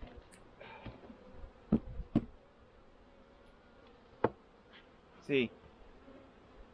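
Honeybees buzzing around an opened hive, with one bee passing close by in a louder, wavering buzz about five seconds in. A few sharp wooden knocks come around two seconds in as the hive's inner cover is handled and set down.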